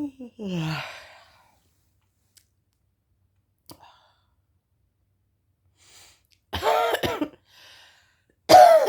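A woman's yawn trailing off, its voice falling in pitch into a breathy exhale, then after a few quiet seconds two bouts of coughing near the end, from a cold that is not going away fully.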